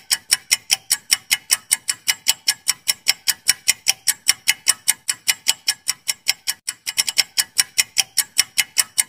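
Countdown-timer ticking sound effect: sharp, even clock-like ticks at about four a second. The ticks briefly stumble into doubled clicks about seven seconds in.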